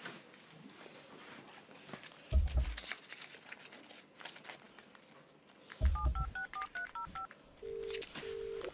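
Mobile phone keypad tones: a quick run of about ten touch-tone beeps as a number is dialled, then the ringback tone's double ring. Two low thuds come about two and a half seconds in and just before the dialling.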